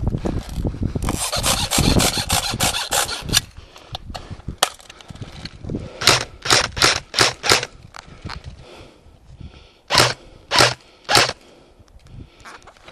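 A rapid rattling burst of airsoft gunfire lasting a couple of seconds, then scattered sharp knocks: about six in quick succession and later three more, spaced further apart.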